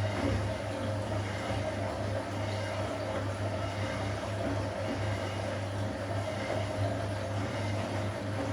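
Gorenje PS 060 A washing machine running with a steady mechanical hum and a low, slightly pulsing drone.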